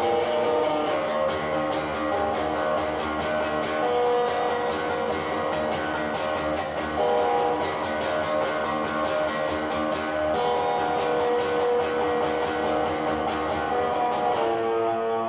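Electric guitar strummed in an even rhythm of about four strokes a second over ringing chords. Near the end the strumming stops and a held chord rings on.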